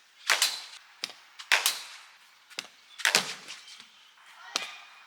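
A new GM cricket bat striking a cricket ball: three loud, sharp cracks about a second and a half apart, each ringing briefly, with fainter knocks between them.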